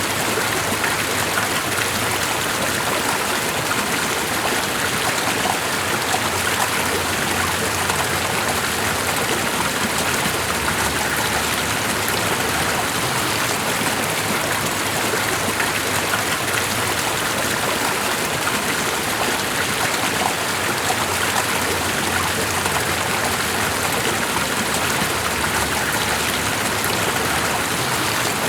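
Steady, unchanging rush of water from a flowing stream.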